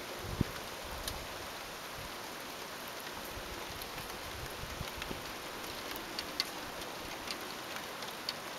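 Rain falling steadily as an even hiss, with scattered sharp ticks of nearby drops.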